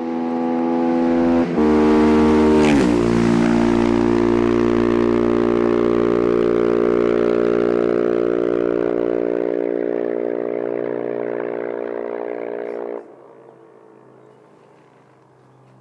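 Husqvarna 701 single-cylinder motorcycle with a Leo Vince exhaust, its dB killer removed, passing at speed. The engine note grows louder on the approach and drops in pitch as it goes by about two and a half seconds in. It then fades slowly into the distance and cuts off sharply about thirteen seconds in.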